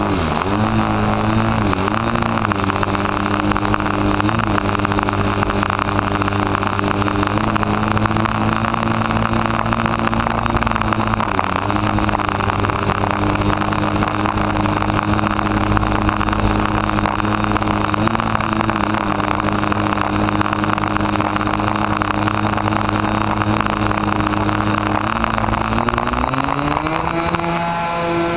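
Model airplane's engine and propeller, close to the microphone, running steadily at low throttle with a few brief wobbles in pitch. Near the end it revs up smoothly to a higher, steady pitch as the throttle opens for takeoff.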